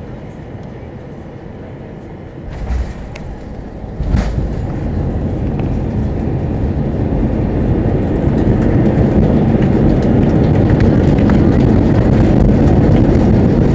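Airbus A320 touching down, heard from inside the cabin: a thump about two and a half seconds in and a sharper jolt about four seconds in as the wheels meet the runway. Then the engines' reverse thrust and the tyres rumbling on the runway build into a loud, steady noise.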